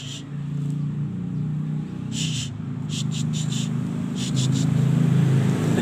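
An engine running steadily and growing louder, with short bursts of insect chirping over it.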